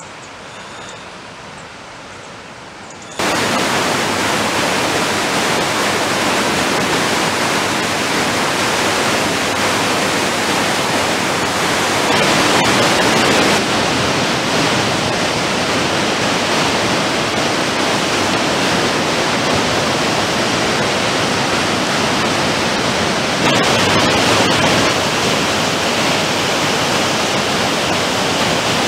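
A river in flood, swollen and muddy, rushing in a loud, steady, even noise. It starts about three seconds in with a sudden jump from a much quieter water hiss.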